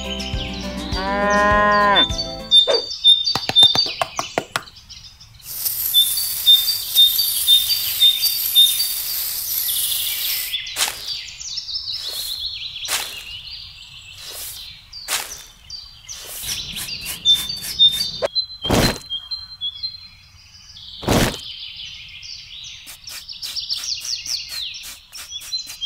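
A cow mooing, its pitch bending, in the first two and a half seconds, then small birds chirping in short high notes. A spell of hissing follows, then a series of sharp knocks and taps.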